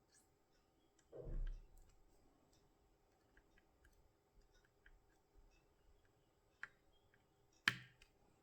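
Faint scattered ticks and clicks from a pick working the pins of a tubular hex core lock under tension, with a brief muffled low sound about a second in. One sharper click near the end is the kind of small click that marks a pin setting.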